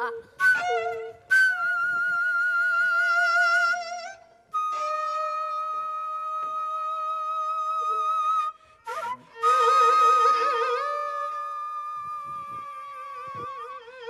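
Slow instrumental music: a melody in long held notes with a wide vibrato, played in a few phrases with short breaks between them.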